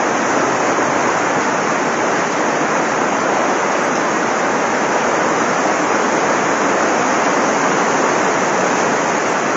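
Heavy rain pouring down while floodwater rushes through the street: a loud, steady, unbroken noise of water.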